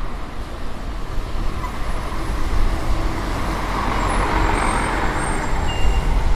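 Street traffic with double-decker buses passing close by: engine rumble and tyre hiss on a wet road, swelling about four seconds in and growing louder near the end.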